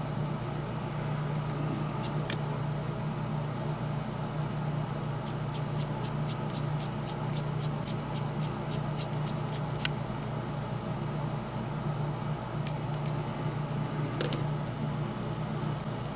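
A steady low background hum with scattered light clicks and ticks of small metal parts and a screwdriver being handled during reassembly of a model locomotive.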